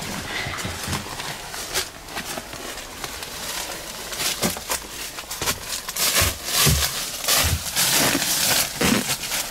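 Dry fallen leaves rustling and crackling under someone crawling or scrambling over a leaf-covered floor. The crackling grows denser and louder about halfway through, with heavier thuds of hands, knees or feet near the end.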